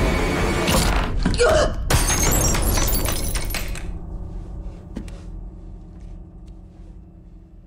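A couple of thuds, then glass shattering about two seconds in: a burst of crashing and tinkling that dies away over a second or two. A low steady drone is left underneath.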